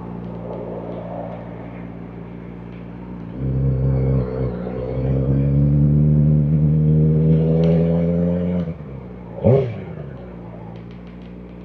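Kawasaki Ninja ZX-4RR's inline-four engine running at a steady low note, then louder as the bike pulls away, its pitch rising gently before the throttle closes about three-quarters through. A quick rev blip follows, then the engine settles back to a steady, quieter note.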